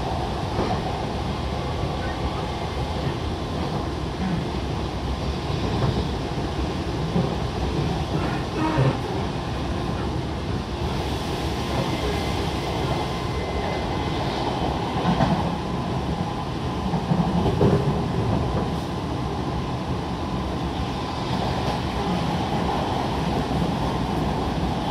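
Inside-the-car running noise of an Odakyu 1000 series electric train at speed: a steady rumble of wheels on rail with a faint motor hum, and a few louder knocks and rattles about two-thirds of the way through.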